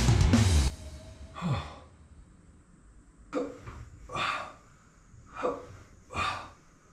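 A man breathing hard through a set of cable lat pulldowns: a short low grunt, then four sharp, noisy breaths about a second apart. A burst of rock music cuts off just under a second in.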